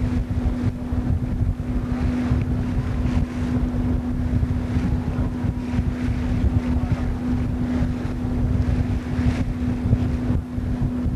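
Wind buffeting the microphone on the open deck of a car ferry under way, over a steady drone from the ferry's engine.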